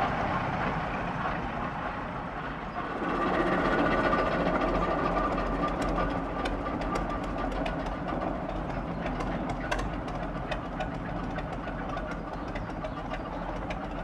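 Small narrow-gauge diesel locomotive's engine running as it moves slowly, getting louder about three seconds in, with a scatter of light clicks through the middle.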